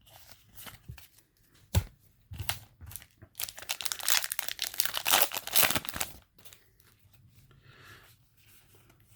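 A foil booster pack of trading cards being torn open and its wrapper crinkled: a sharp tick about two seconds in, then a loud stretch of tearing and crinkling in the middle, trailing off into softer rustling near the end.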